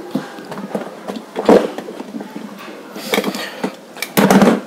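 Plastic electrical parts clacking and rattling as they are handled and set down on a tabletop. There is a sharp knock about a second and a half in and a louder clatter near the end.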